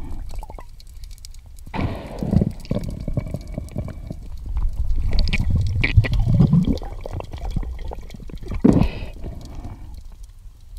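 Muffled underwater sound of water moving and gurgling around a diver struggling with an octopus, heard through a camera underwater. It swells and fades irregularly several times.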